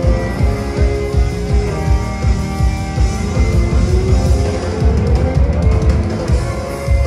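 Live rock band playing: electric guitar over a drum kit beat and bass, with one note gliding upward in pitch about four to five seconds in.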